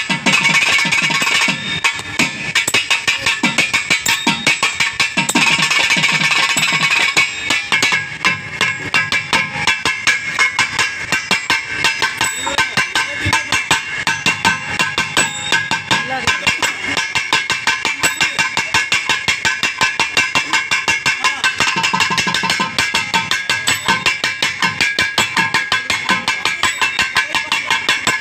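Carnatic drum solo (thani avartanam): fast, dense, crisp strokes in a steady rhythm over a steady pitched tone, with stretches of deep bass strokes mixed in.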